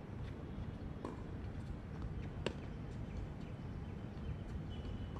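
Tennis rally on a hard court: a few sharp pops of the ball off rackets and the court surface, the loudest about two and a half seconds in, over a steady low background noise.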